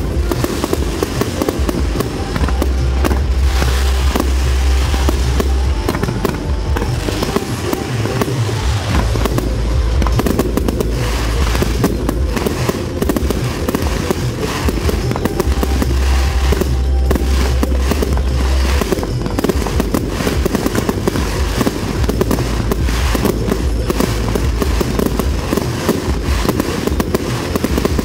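Fireworks display going off without a break: rapid, overlapping bangs and crackling shell bursts.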